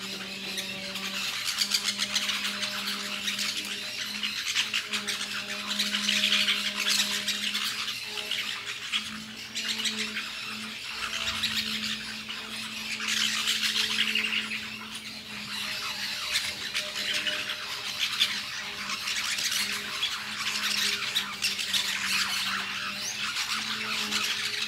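A flock of small green parakeets squawking and chattering while they feed, the din swelling and easing in waves. A steady low hum runs underneath.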